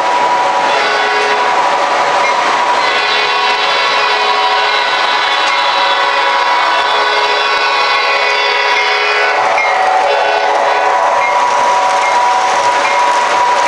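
A model diesel passenger locomotive's onboard sound system, on an MTH Premier O-gauge layout, sounding its air horn in long held chords over the engine sound. The horn's pitch pattern changes about three seconds in and again after about nine seconds. Wheels clatter on the track as the cars pass near the end.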